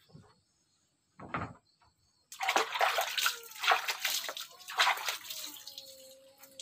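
A thump about a second in, then a loud rush of running, splashing water for about four seconds. It fades near the end under a drawn-out, wavering tone.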